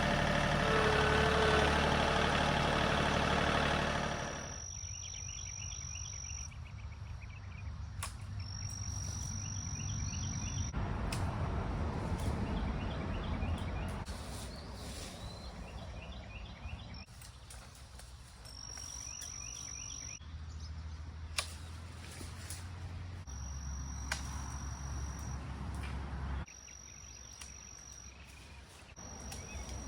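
John Deere 3025e compact tractor's diesel engine running steadily for about four seconds, then cut to quieter outdoor ambience. That ambience has a steady high insect buzz and chirping that start and stop with the edits, over a low engine hum in places.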